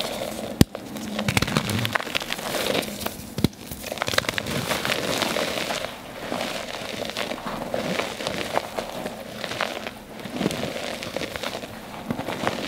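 Blue dyed gym chalk crushed by hand in water: a dense crackling crunch, with a couple of sharp snaps in the first few seconds, then softer crunching as the fingers press and dig into the powder.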